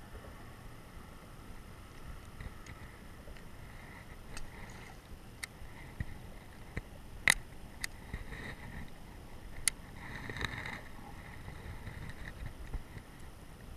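Gear handling in a kayak while fishing: a string of sharp clicks and knocks, the loudest about halfway through, with short spells of soft whirring as a fishing reel is wound in.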